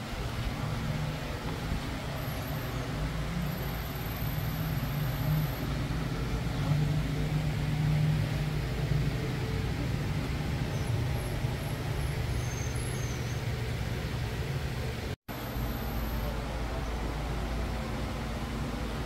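Steady low background rumble with a faint hiss above it, broken by a brief dropout about fifteen seconds in.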